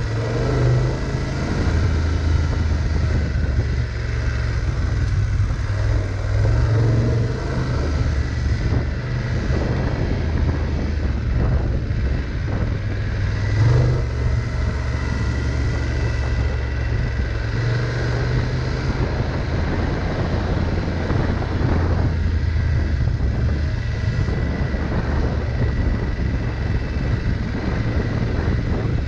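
Adventure motorcycle engine running at low trail speed on a dirt track, its pitch shifting a little as the throttle is eased on and off, with a short blip of throttle about halfway through. Tyre and wind noise run underneath.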